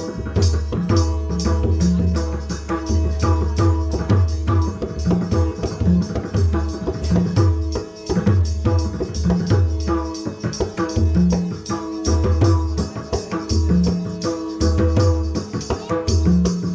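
Instrumental bhajan accompaniment with no singing. A hand drum plays a fast, steady rhythm with deep bass strokes, jingling percussion keeps time, and held notes sound underneath.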